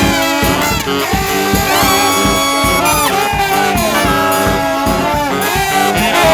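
A brass band playing live: trombone, trumpet and sousaphone play held notes, several ending in downward falls, over a steady drum beat.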